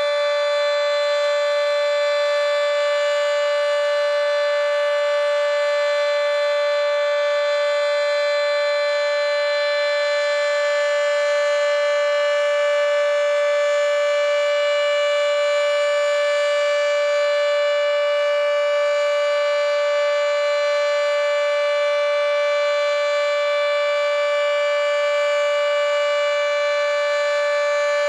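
Federal Signal 2T22A three-phase dual-tone warning siren sounding its steady alert signal, its top intake blocked. It is a continuous, unchanging tone with many overtones that neither rises nor falls.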